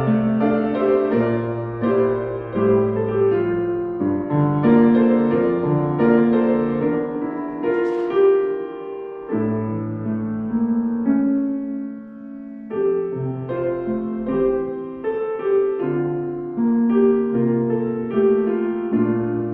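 Piano playing a slow, gentle prelude of held chords and a melody, softening briefly about two-thirds of the way through.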